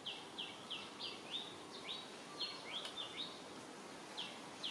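A bird calling: a run of short, high notes, each sliding down in pitch, repeated about three times a second with a brief pause past the middle.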